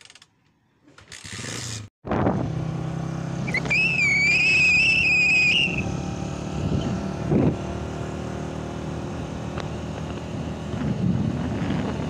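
Honda motorcycle engine running steadily while being ridden along a road, starting suddenly about two seconds in. A high wavering whistle sounds over it for about two seconds, and again near the end.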